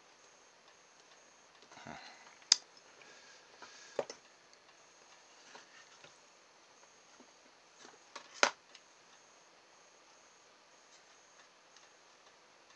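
A few sharp clicks and taps, with brief handling rustle, as a soldering iron and wires are worked against the plastic trigger switch and housing of a cordless drill. The loudest two come about two and a half seconds in and about eight and a half seconds in, with a softer one around four seconds.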